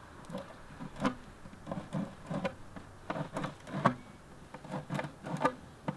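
Razor knife scraping and trimming leftover plastic burrs from drilled holes in a plastic food-grade bucket: short irregular scrapes and clicks, one or two a second, the sharpest about four seconds in.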